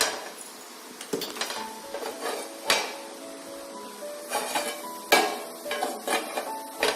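Metal cookware knocking and clinking against a kadai on the stove, about eight separate knocks, over soft background music.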